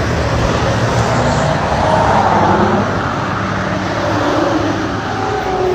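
Highway traffic passing close by, with one vehicle going past loudest about two seconds in.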